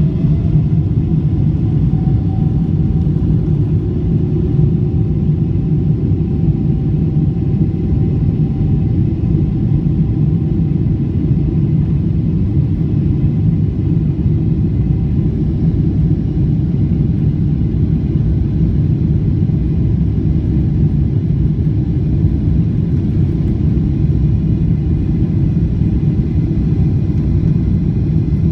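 Jet airliner during takeoff: a steady, loud, low rumble of engines and the aircraft's run. A faint higher tone rises slightly at the start and fades out about ten seconds in.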